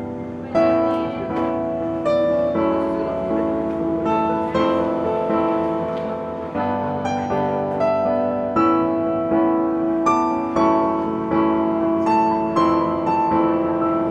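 Background piano music, a gentle melody with notes struck at a steady pace.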